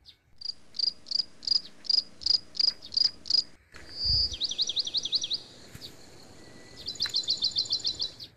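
Bird song: a series of about nine high, evenly spaced chirps, then a short run of quick up-and-down whistled sweeps, and a fast high trill near the end.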